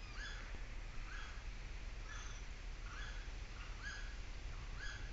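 Short arched chirps from a single wild animal, repeated about once a second, over a faint steady low rumble.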